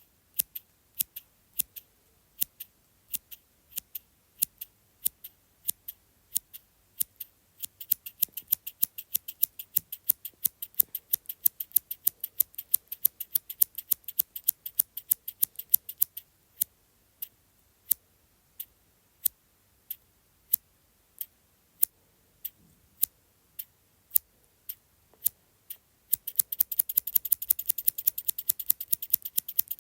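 Small scissors snipping over and over in short, crisp snips. They come at a moderate pace at first, quicken, slow to single spaced snips, then break into a fast run near the end.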